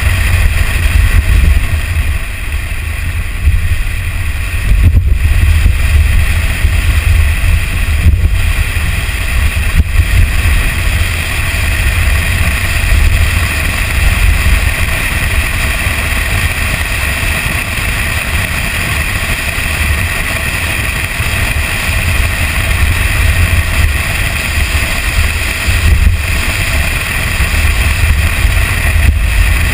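Toyota Tacoma pickup driving along a sandy dirt trail: a steady low rumble of wind on the microphone, mixed with the noise of the truck's engine and tyres.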